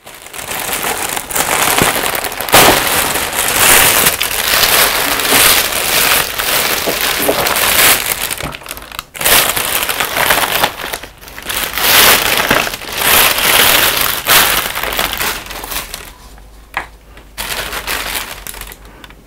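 Thin plastic carrier bag rustling and crinkling in loud bursts as hands rummage in it and lift out takeout containers. It quietens near the end, leaving a few light clicks.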